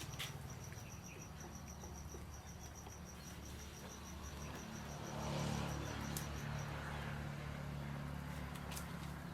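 An insect chirping in a rapid, even, high-pitched pulse of about eight chirps a second, which stops about two-thirds of the way through, over a steady low hum. A brief rush of noise rises and fades about five seconds in.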